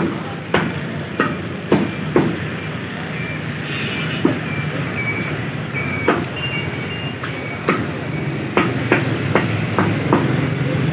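Meat cleaver chopping raw chicken on a wooden chopping block: sharp chops, about one or two a second, with a short pause a few seconds in. A steady low hum runs underneath.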